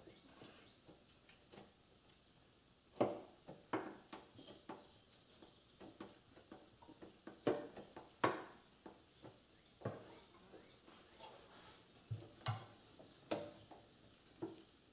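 Irregular light metallic clicks and ticks, with several sharper knocks, as hand tools and engine parts are worked and moved on a motorcycle engine being fitted into its frame.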